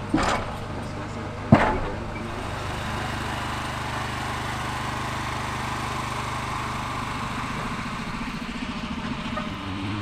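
Steel rail cradle of an inclined-plane boat lift carrying a passenger boat on its rails: a steady mechanical rumble and hum, with two sharp metallic clunks in the first two seconds. The low hum drops away about eight seconds in.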